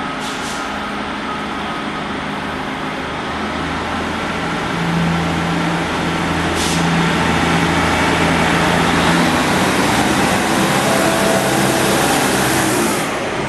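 Class 156 Sprinter diesel multiple unit arriving at a platform, its diesel engines running with a low steady hum that grows louder as the carriages pass close by, along with rushing rolling noise.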